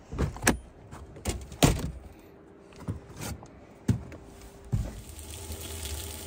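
Kitchen clatter: a string of sharp knocks and clunks as cookware is handled, then a steady hiss building near the end as food starts to sizzle in a pan.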